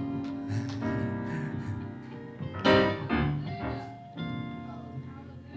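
Keyboard playing sustained worship chords, with a louder chord struck about two and a half seconds in.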